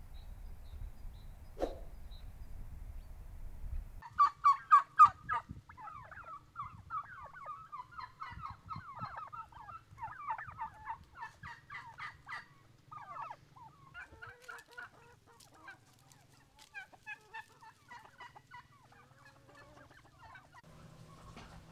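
A flock of turkeys gobbling and calling in quick pulsed bursts, starting about four seconds in and loudest at first, then going on in smaller bursts.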